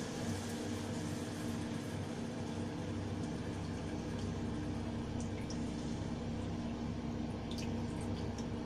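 Kudampuli (Malabar tamarind) water being poured into a pan of sautéed curry masala, over a steady low hum, with a few faint clicks in the second half.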